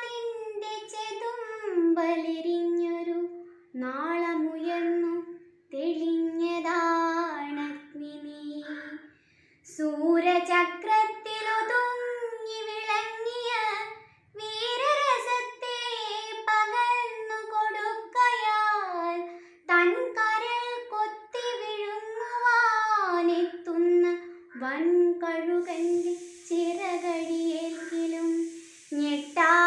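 A teenage girl's unaccompanied solo voice chanting Malayalam verse in the melodic kavithalapanam recitation style, in sung phrases with long held notes and short breaths between lines.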